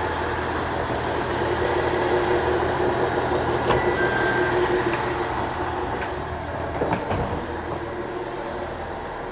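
Diesel railcar standing at a platform with its engine idling steadily. About four seconds in comes a click and a short electronic beep from the door push-button, and a sharp knock follows about three seconds later.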